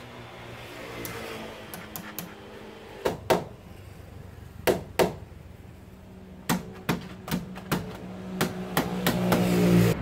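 A dozen or so sharp, irregular knocks from hand work fastening a service-entrance pipe at a roof eave, starting about three seconds in. Under them runs a steady low hum that grows louder near the end.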